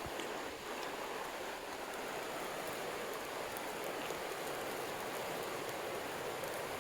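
Steady rushing of a mountain stream, an even hiss of flowing water.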